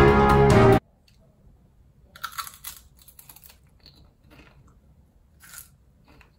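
Intro music cuts off about a second in, followed by a person biting and chewing crunchy chips: a few separate crunches, the loudest cluster around two seconds in.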